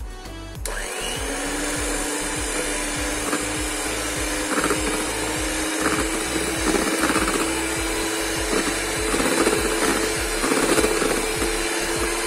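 Electric hand mixer switched on just under a second in and running steadily, its beaters whisking a creamy ice cream base, with a few short louder spells as they work through the mix.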